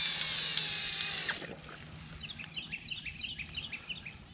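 Fishing line whirring off a reel's spool as a baited rig is cast out, lasting about a second and a half. Then a bird chirps over and over, a string of short falling notes.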